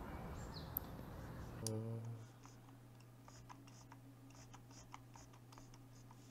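Faint, scattered clicks and ticks of a computer mouse as a web page is scrolled, over a low steady electrical hum. A brief low murmur comes about two seconds in.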